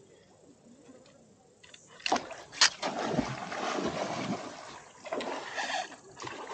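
A hooked shabbout fish thrashing and splashing at the river surface as it fights the line, in several splashy bouts starting about two seconds in.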